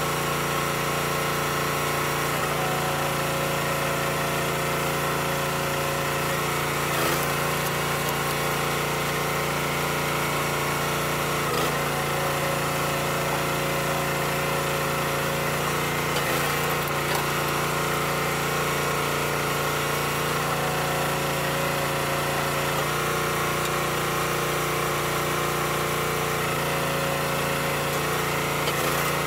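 Small gas engine of a hydraulic log splitter running steadily, its tone shifting a little as the ram is put under load, with a few short sharp cracks as rounds split on the wedge.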